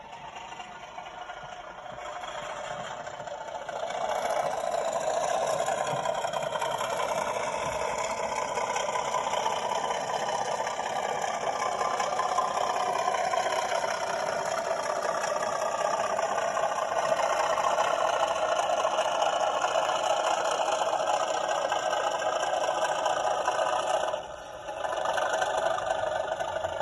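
OO gauge model locomotive's DCC sound decoder playing engine sound through its small onboard speaker. The engine note builds over the first few seconds, then runs steadily with a light rattle, dropping away briefly near the end before picking up again.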